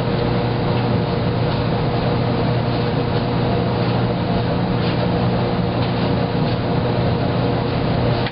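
Wascomat Junior W73 commercial front-load washer running through its wash cycle: a steady mechanical hum with the load tumbling in water.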